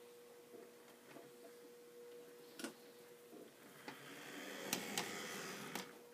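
Faint steady hum with a few scattered ticks, then from about four seconds in the small motor of an HO-scale diesel locomotive runs and its wheels click over the rail gaps as it rolls onto a Walthers 90-foot turntable bridge; the noise swells and stops just before the end.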